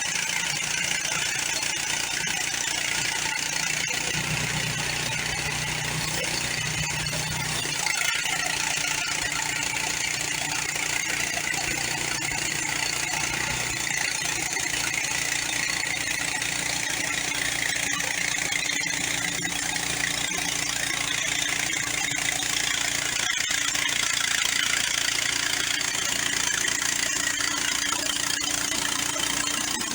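Gasoline engine of a portable band sawmill running steadily while the band blade cuts through an eastern red cedar log.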